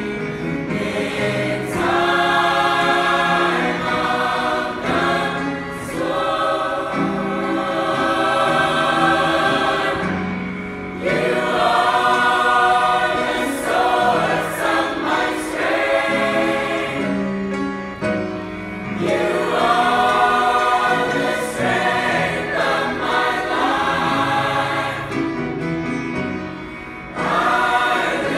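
Mixed choir of male and female voices singing a slow gospel song in long, sustained chords, with short breaks between phrases.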